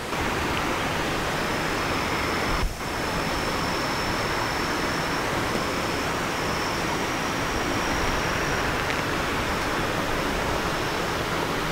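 Steady rushing hiss of running water at a trout pond, with a faint, thin, high whine running over it for most of the time.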